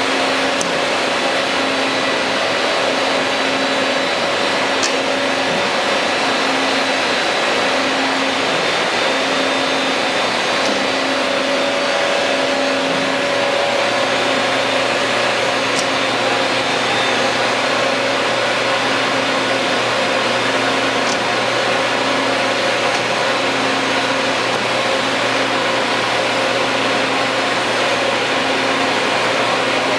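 Running shop machinery: a steady hiss with a low tone that pulses about once a second, and a deeper steady hum that comes in about halfway through.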